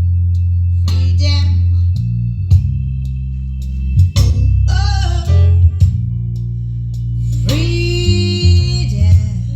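Recorded music with heavy sustained bass and guitar, played back loud through a JBL PA loudspeaker for a sound check. Short melodic phrases come in over the bass about a second in, around five seconds, and again near the end.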